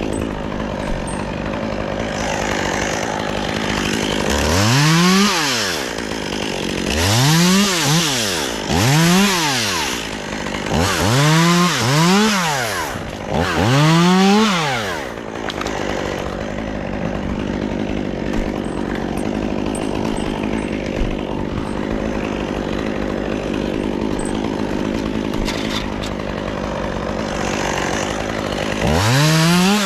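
Chainsaw running, revved up and back down about six times in quick succession, then running steadily before revving again near the end.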